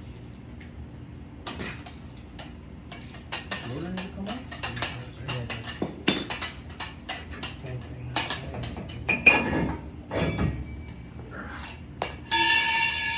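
Metal hand tools and parts clinking and clattering in a run of irregular knocks, with a brief high ringing squeal near the end.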